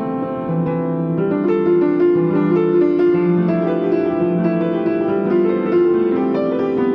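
Piano playing a slow piece of sustained chords with a melody above, new notes coming about every half second.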